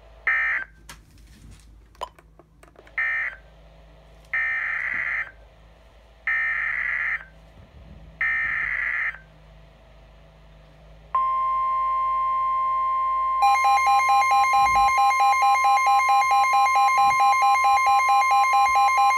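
NOAA Weather Radio emergency alert signals: a series of warbling digital SAME data bursts, then the steady 1050 Hz warning alarm tone. A couple of seconds later a Midland WR-120 weather radio's own rapidly pulsing alert beeps sound over it. Together they announce a new tornado warning.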